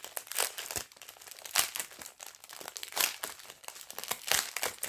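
Thin clear plastic packaging crinkling as fingers work it open, in quick irregular crackles.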